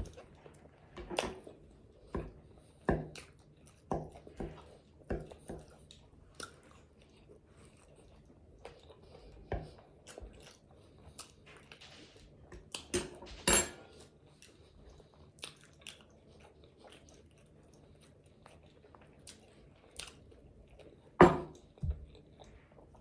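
Close-miked chewing of fried chicken and fried cabbage: irregular crunchy bites and wet mouth smacking, with the loudest crunches about halfway through and near the end.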